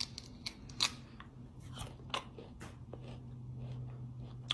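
Biting and chewing a chunk of raw ginger root: irregular crisp crunches, the loudest about a second in, thinning to occasional clicks as the chewing goes on. A low steady hum comes in during the second half.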